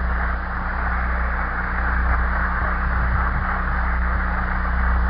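Audience applauding after a pointed line in a speech, as an even clatter of clapping.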